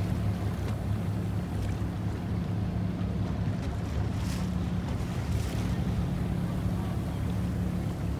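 Steady low drone of a small boat's engine running at slow speed on the water. Water noise and wind on the microphone run under it, with a couple of brief splashy surges about halfway through.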